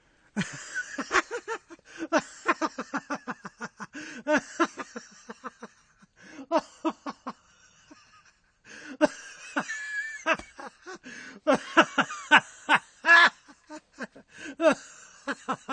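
A man laughing hard in long, rapid bursts, slapping his knee a few times, with a brief pause about halfway through.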